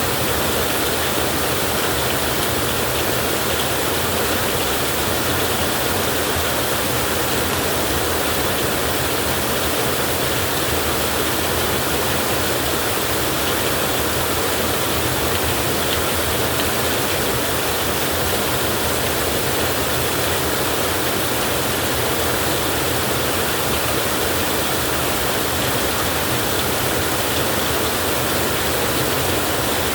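Heavy rain falling in a steady, even downpour, with no thunder and no single drops standing out.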